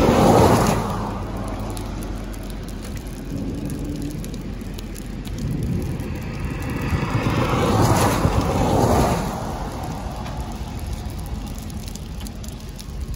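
Cars passing on a wet road, their tyre spray hiss swelling and fading: one right at the start and another about seven to nine seconds in, over a steady background hiss of rain.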